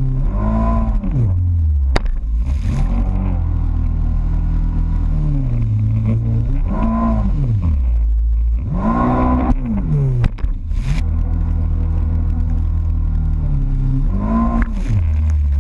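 Jet ski engine running hard over chop, its revs surging and falling back about five times as the craft comes off and lands on waves, with a sharp knock about two seconds in and hull slaps and splashing around ten seconds in.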